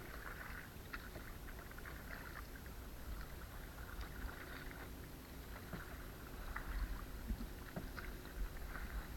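Canoe paddles dipping and pulling through the water, a splash every second or two with light knocks, over a low steady rumble.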